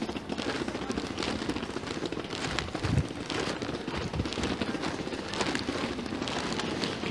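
Footsteps on a paved sidewalk at walking pace, over a crackly street background, with one heavier thump about three seconds in.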